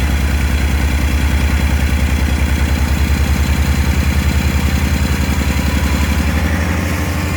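Vintage car engine idling steadily with an even, rapid pulse. The owner has found a fault at the cylinder head while running it.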